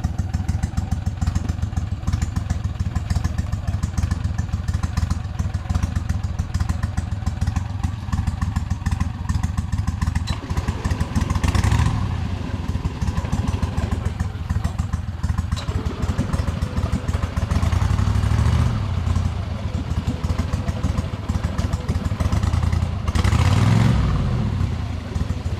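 Boat engine running with a rapid low firing beat, revving up briefly about halfway through, again a little later and once more near the end, under load as the boat is driven into thick swamp vegetation.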